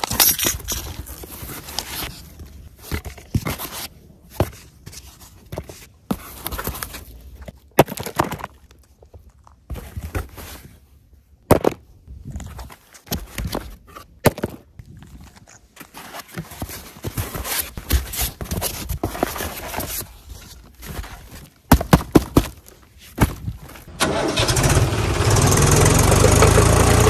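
Cardboard box and polystyrene foam packing being handled and pulled apart: irregular rustles, scrapes and knocks with short pauses. About three seconds before the end, a tractor engine sound cuts in suddenly and runs on steadily and loudly.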